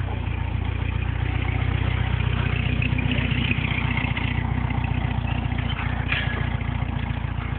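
Apal dune buggy's engine idling steadily, with an even, rapid exhaust pulse.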